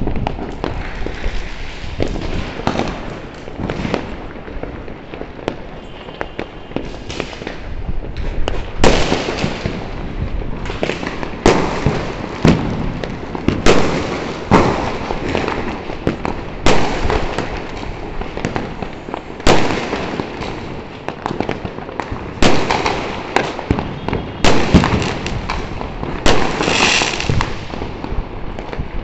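Many fireworks and firecrackers going off around a city neighbourhood: a continuous crackle with sharp bangs every second or two. A brief high hiss comes near the end.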